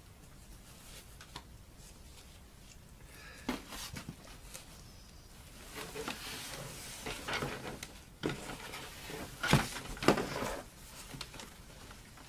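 Handling noise from a cardboard box and the faux-fur fursuit head inside it being lifted out: rustling and light knocks that come in scattered bouts from about three seconds in, the loudest knocks in the last third.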